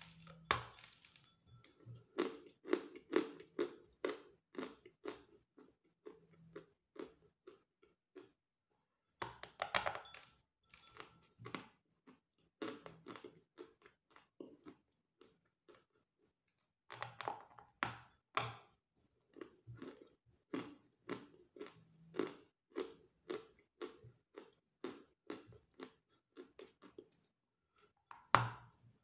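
A person biting chunks off a block of medium-hard Volokonovka natural chalk and chewing it, with a muffled, soft crunch. There are four sharp bites, each followed by steady chewing at about three crunches a second.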